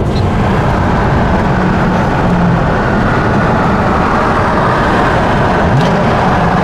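Mercedes-Benz W140 S600's V12 running hard through its aftermarket Brilliant exhaust, a loud continuous exhaust note that climbs in pitch again near the end, echoing in a road tunnel.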